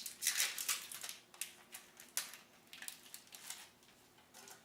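Foil Pokémon card booster pack being opened: a run of irregular crinkling and crackling of the wrapper, dying away near the end.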